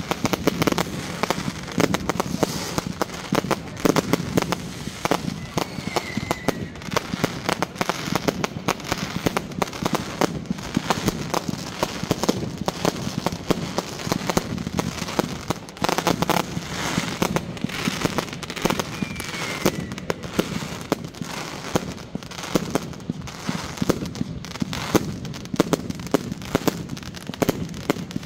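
Fireworks going off without pause: a dense run of bangs and crackles.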